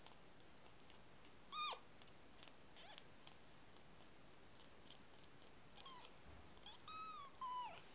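Very young calico kitten mewing: a few short, thin cries that drop in pitch at the end. One clear mew comes about a second and a half in, a faint one near three seconds, then three in quick succession near the end.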